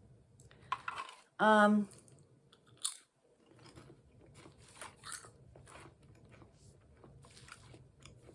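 Potato chips crunched and chewed in the mouth, a run of faint, irregular crackles. About one and a half seconds in there is a short hum of the voice.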